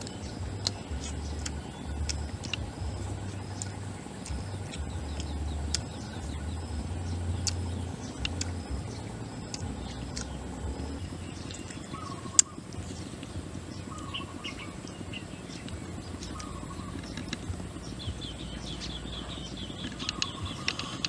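Spoon clicking and scraping against a small wooden cup while soup is eaten, with one sharp louder click about halfway through. Birds chirp in short repeated calls through the second half, and a low rumble runs under the first half.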